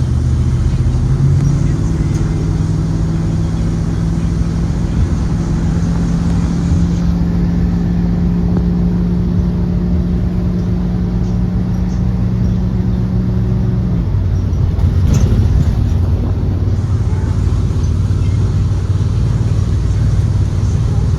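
The 2023 Blue Bird Vision school bus's Ford 7.3-litre gasoline V8 running steadily as the bus drives. The engine's tone holds level for most of the stretch, then drops to a lower pitch about two-thirds of the way through.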